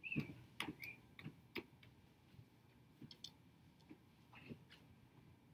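Near silence with a dozen or so faint, irregularly spaced clicks and ticks over quiet room tone.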